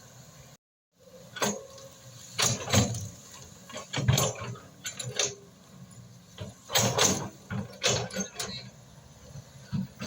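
Excavator working: a low steady engine hum under a string of irregular loud knocks and scraping bursts.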